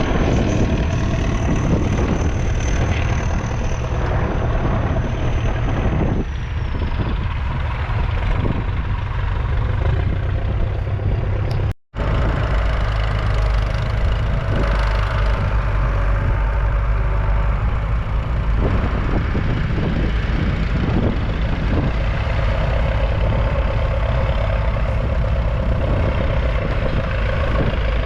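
1981 Leyland 802 tractor's 3.8-litre four-cylinder diesel engine running steadily. A sudden brief break comes about twelve seconds in.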